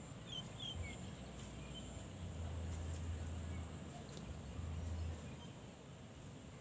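Steady high-pitched insect drone, with a few short bird chirps in the first second and a low rumble twice in the middle.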